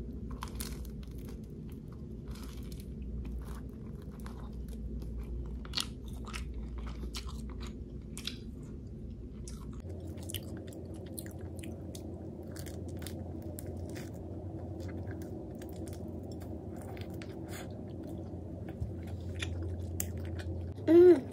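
A person biting into and chewing a flaky cream-filled croissant close to the microphone, with irregular short crackles from the crisp pastry.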